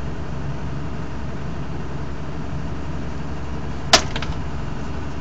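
Screening machine running with a steady low drone. About four seconds in comes one sharp clack, followed quickly by two or three smaller clicks.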